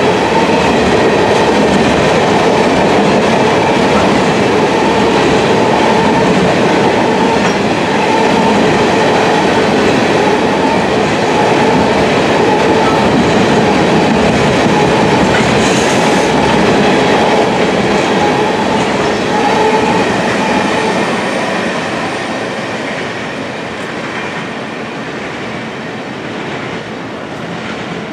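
Steel wheels of freight-train tank cars rolling over the rails close by, a steady dense rumble with faint ringing tones. It fades over the last several seconds as the end of the train passes and moves away.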